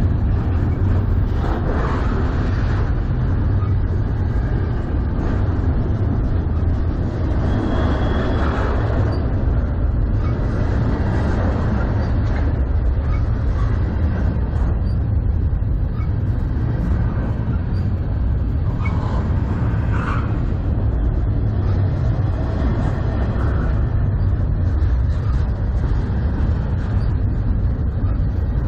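Double-stack intermodal freight train of container well cars passing close by: a loud, steady rumble of steel wheels rolling on the rails.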